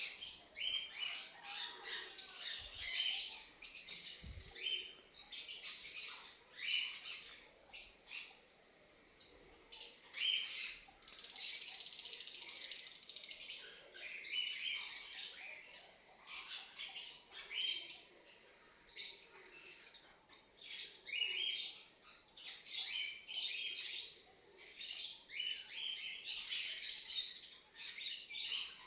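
African lovebirds chirping: a long run of sharp, high-pitched chirps in dense clusters, with short lulls between them.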